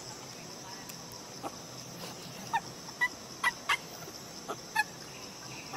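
A string of short, sharp clucking calls, about seven over three seconds, over a steady high drone of insects.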